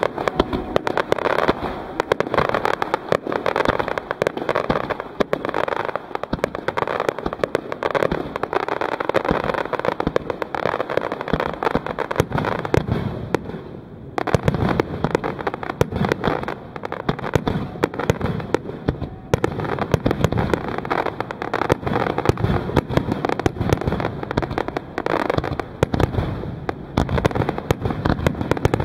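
Star mine fireworks: a dense, continuous barrage of aerial shell bursts and crackling, with a short lull about halfway through.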